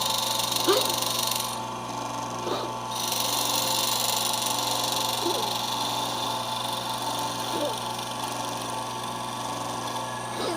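CNC router milling a wooden mold with light cuts: the spindle runs with a steady whine and hiss, and brief rising chirps come every two to three seconds as the machine moves. The high hiss drops out briefly about two seconds in.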